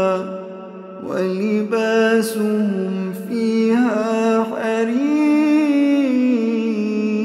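A man reciting the Quran in a melodic, chanted style, holding long wavering notes, with short breaks between phrases.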